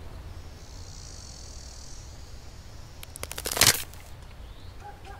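A handheld walkie-talkie's plastic casing cracked and snapped apart by hand: a quick run of clicks, then a loud crackling crunch about three and a half seconds in. A faint high hiss comes before it.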